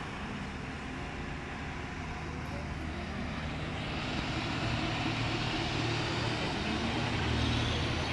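Tata truck's diesel engine running steadily and growing louder as the truck approaches, with more road and tyre hiss joining from about halfway through.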